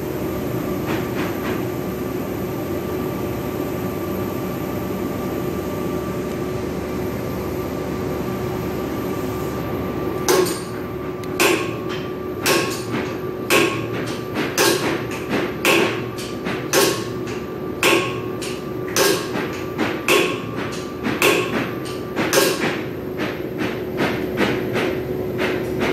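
Steady machinery hum. About ten seconds in, sharp metallic clicks begin at a very even pace of about one a second, with fainter clicks in between; near the end only the fainter clicks remain.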